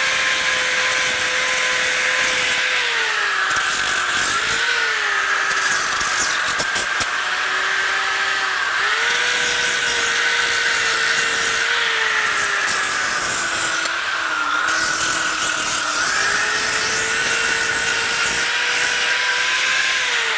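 DeWalt electric hand disc sander running and sanding a wooden board: a steady motor whine over the rasp of the abrasive on the wood. The whine dips in pitch several times and recovers.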